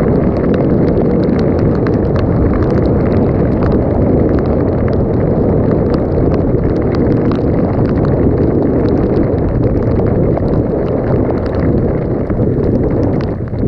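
Dirt bike riding on a trail: heavy wind buffeting on the microphone over the engine, with many small clicks and rattles throughout.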